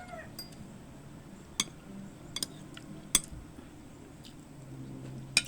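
Utensils clinking against dishes: a few sharp, separate clinks spread across several seconds.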